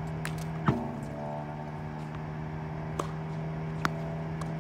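Slinger Bag tennis ball machine humming steadily, with one sharp loud knock under a second in as it fires a ball. Fainter knocks of balls being struck and bouncing come later.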